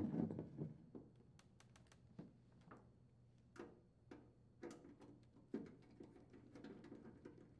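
Faint clicks and light metallic taps of a screwdriver working the screws out of a washing machine's front panel, after a brief low handling rumble in the first second.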